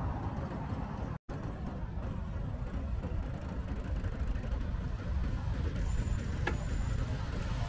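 Steady low rumble of road traffic around a moving bicycle. The sound cuts out for an instant about a second in, and there is a single sharp click near the end.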